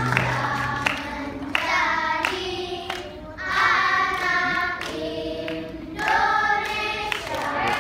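A group of young children singing a song together in unison, in sung phrases broken by short pauses.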